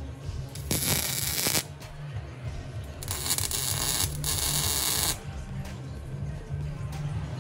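MIG welder arcing on a car's exhaust pipe: two bursts of crackling hiss, about a second and then about two seconds long. Background music with a steady low beat plays throughout.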